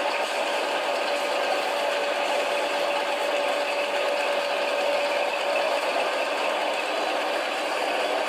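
CBADEN SAP40 flat-bottom case packer and stacker line running: steady machine noise from its conveyors and drives, with a thin steady tone that fades out about six seconds in.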